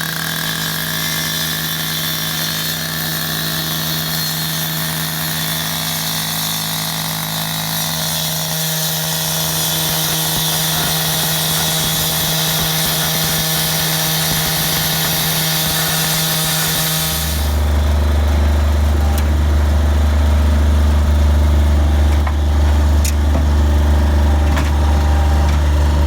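Engine-driven saw cutting through asphalt: a steady engine note under a loud, hissing grind. About 17 seconds in, the cutting noise stops abruptly and a deeper, steady engine drone takes over.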